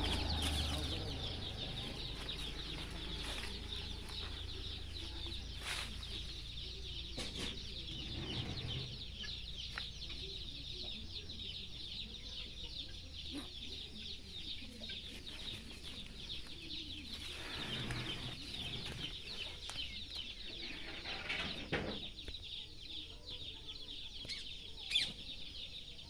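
Chickens clucking against a steady high-pitched chirring, with a few sharp clicks.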